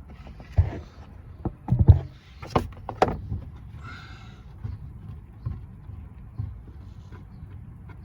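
A few sharp knocks and metallic clinks as a fitting is worked loose by hand and tools are handled under the car, then a brief squeak about four seconds in and a few faint ticks.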